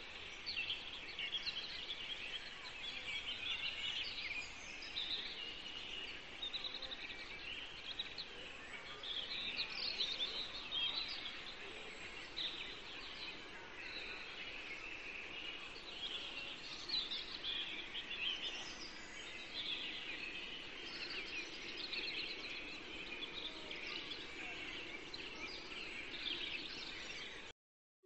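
Songbirds singing and chirping in a continuous outdoor chorus over a faint steady background hiss, cutting off abruptly near the end.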